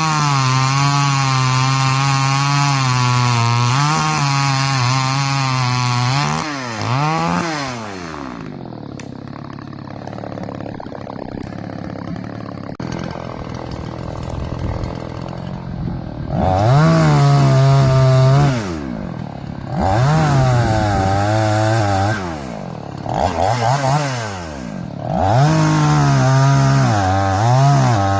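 Two-stroke chainsaw held at full throttle for about six seconds, its pitch dipping briefly once, then dropping back to idle. After several seconds of idling it is revved up again in four short bursts.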